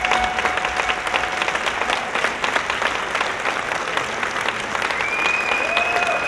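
Audience applauding and cheering, with the performance music fading out in the first couple of seconds. Near the end a long, high, steady whistle rises above the clapping.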